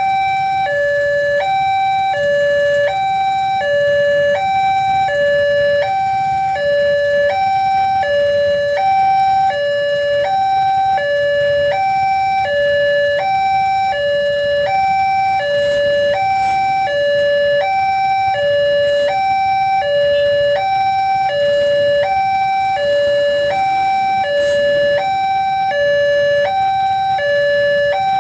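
Railway level-crossing warning alarm: an electronic two-tone signal alternating steadily between a higher and a lower tone, each held for about three-quarters of a second, warning that a train is approaching.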